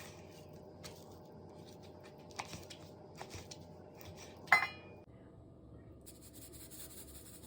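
Kitchenware clattering: a few light clicks, then one loud ringing clink of metal or glass about four and a half seconds in. A steady hiss follows from about six seconds in.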